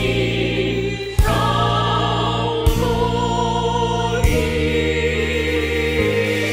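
Mixed virtual choir of many separately recorded voices singing held chords with piano accompaniment, the chords changing with a fresh piano attack about every one and a half seconds.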